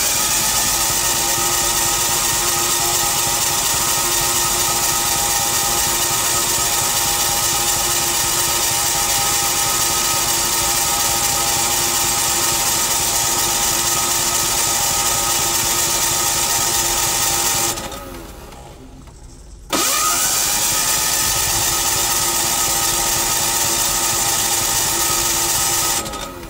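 Electric starter cranking a 186F single-cylinder diesel generator engine. It cranks steadily for about eighteen seconds, stops for two, then cranks again for about six seconds without the engine catching. The owner suspects fuel starvation from an airlock in the fuel line.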